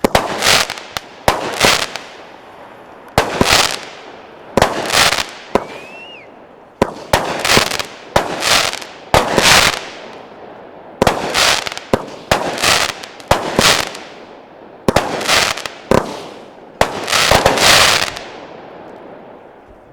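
Winda Smoke Dragon 16-shot firework cake firing its shots in quick, uneven clusters. Each shot is a sharp report followed by about half a second of rushing hiss. The last shot comes at about 18 seconds.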